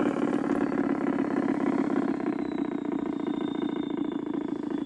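LGB G-scale side-rod diesel locomotive model running along garden railway track: a steady electric-motor and gear hum with a rapid rhythmic clatter. A faint high whine falls slowly in pitch in the second half.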